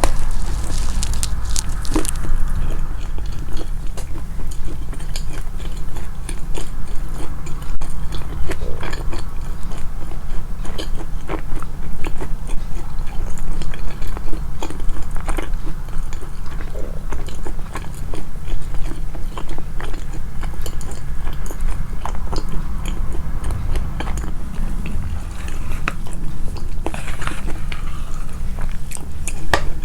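Close-miked chewing and biting, a person eating with loud, wet mouth sounds and many short crisp clicks throughout, amplified in editing.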